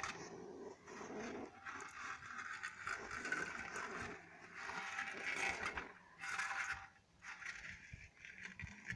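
Hedgehog hissing and huffing in repeated noisy bouts of a second or two.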